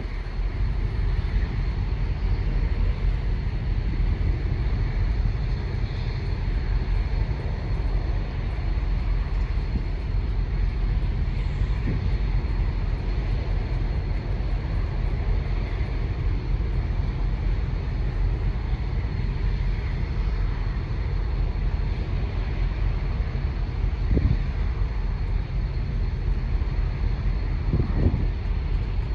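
Steady low rumble of a Union Pacific tie pickup work train on the move, with a few faint knocks.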